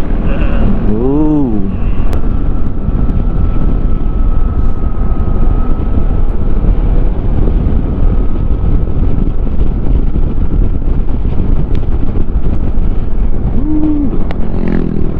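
Yamaha XMAX scooter's single-cylinder engine running under riding load on a climb, mixed with heavy wind rush over the microphone. A brief voice sound comes about a second in and again near the end.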